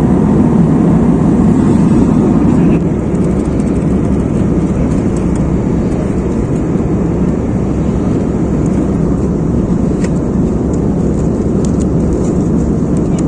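Steady, loud rumble of a moving vehicle heard from inside, dipping slightly about three seconds in.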